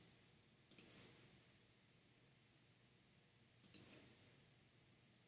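Two computer mouse clicks about three seconds apart, each a quick press-and-release double tick, over near silence.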